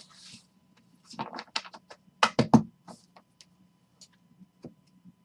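Trading cards being handled and stacked on a table: a short rustle, then a run of sharp taps and clacks, loudest about two seconds in, with a few fainter ticks after.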